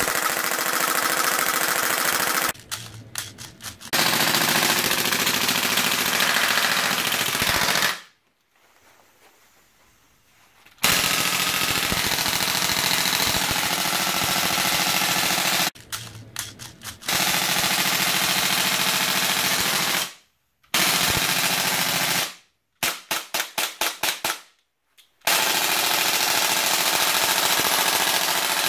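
VFC M27 airsoft rifle with a Daytona HPA gun kit firing long fully automatic bursts without BBs on oiled air, to run in the new mechanism. The rapid fire breaks off several times, with a few slower strings of separate shots and a pause of about three seconds starting about eight seconds in.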